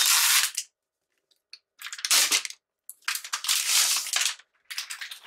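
Protective wrapping being pulled off a new Mac mini, rustling and crinkling in several bursts with short silent pauses between them.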